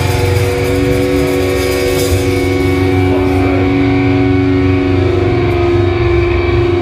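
Live rock band playing loud: guitars holding long sustained notes over bass and a busy drum kit, with the cymbals easing off about halfway through.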